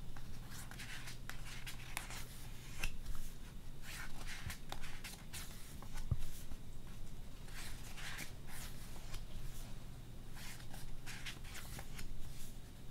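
Pages of a glossy album photobook being turned by hand: a soft paper swish and rustle every second or so, over a faint low hum.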